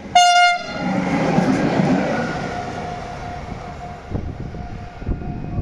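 Electric locomotive giving one short horn blast as it nears, then passing close by with a rumble of wheels on the rails that fades as it moves away, with a few knocks near the end.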